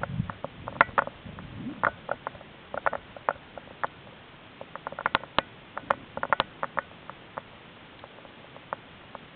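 Irregular sharp clicks and ticks picked up underwater, coming in scattered clusters and thinning out towards the end, with a brief low rumble near the start.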